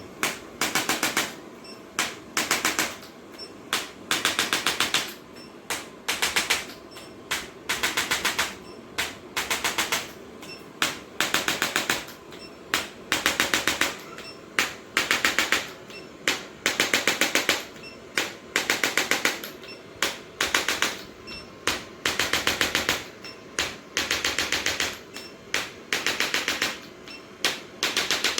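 Handheld chiropractic adjusting instrument firing, a fast rattle of clicks in short bursts of about half a second to a second, repeated roughly every second.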